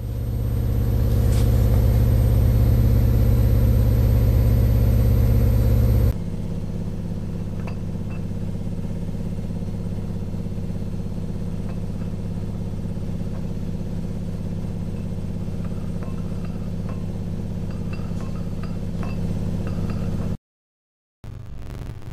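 A small motor humming steadily with even overtones, loud for the first six seconds, then quieter and steady until it cuts off abruptly about a second and a half before the end.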